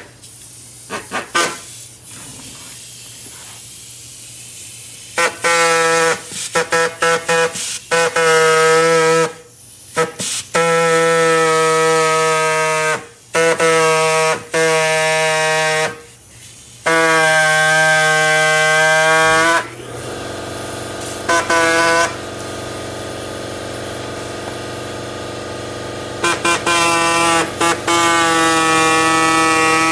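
Handheld electric power tool cutting the rubber lugs of a lawnmower tire, its motor whining at a steady pitch in repeated bursts of one to three seconds with short stops between, and a few clicks from handling in the first seconds. One long burst winds down at the end, about two-thirds through, and a lower steady hum follows.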